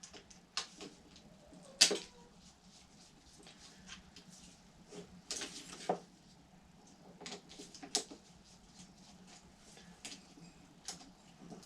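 Scattered small clicks, taps and scrapes of hand work on the compressor's wiring, a screwdriver and wires being handled, with the sharpest click about two seconds in, over a faint steady hum.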